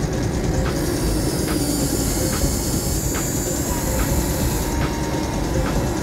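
Electric motors and gearing of a remote-control toy excavator whirring as its arm lifts a bucket of sand, over a steady low rumble. A high whine runs from about a second in to near the end.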